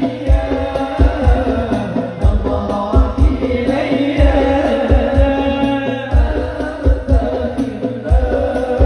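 Sholawat devotional singing with a hadrah ensemble: a lead voice carries a wavering melody over hand-struck rebana frame drums and a steady beat of deep drum strokes, about two a second.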